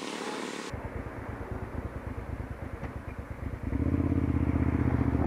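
Hyosung GT650's V-twin engine idling with an uneven low pulsing beat, heard from the rider's helmet camera. About three-quarters of the way through it grows louder and steadier as the engine picks up revs. Before that, under a second in, a hiss of road and wind noise cuts off abruptly.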